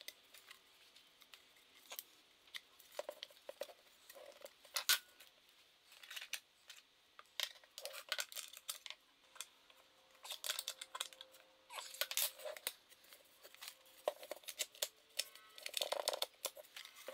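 Scattered light clicks and metal clinks of a router bit being fitted into a palm router's collet with a wrench, along with small knocks of the router and plywood being handled.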